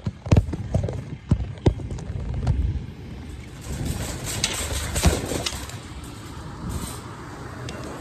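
Wire shopping cart clanking and rattling as it is handled, with several sharp knocks in the first two seconds and more clatter about four to five seconds in, over a low rumble.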